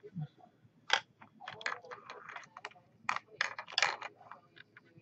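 A run of sharp clicks and short clattering rattles, like small hard objects being handled close to the microphone, densest from about one to four seconds in.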